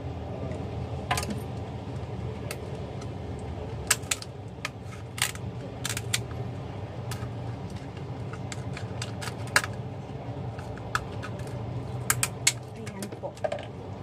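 Irregular sharp clicks and cracks as a raw crab is cleaned by hand, its shell pulled apart and the pieces handled, over a steady low hum.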